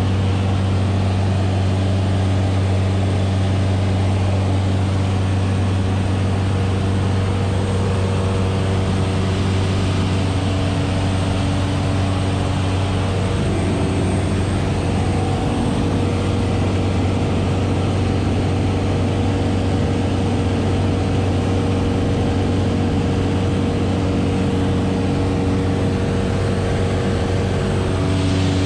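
Jabiru J120 light aircraft's engine and propeller running steadily in cruise, heard inside the cabin as an even low drone with a hiss of rushing air. A few of the engine's higher tones shift slightly about halfway through.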